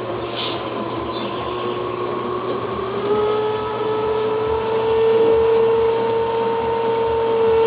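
LG WD1252RW washer-dryer's water circulation pump running with a loud drone that rises in pitch over the first three seconds and then holds steady, over a low hum and a throb pulsing about twice a second. The uploader found the noise stopped after cleaning lint and debris out of the pump filter.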